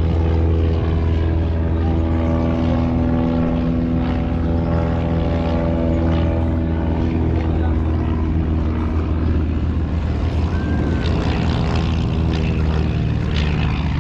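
Aircraft engine running, a steady loud drone made of several pitched tones. The higher tones fade about nine seconds in while the low drone continues.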